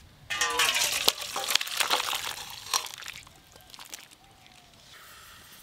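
Thin fish curry with chunks of drumstick and potato poured from a metal kadai into an empty stainless-steel bowl, splashing and sloshing for about three seconds before trailing off.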